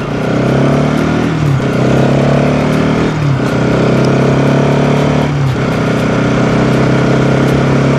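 Motorcycle engine running under way, the pitch climbing and dropping back three times as the gears change, over steady wind rush on the rider's clip-on mic.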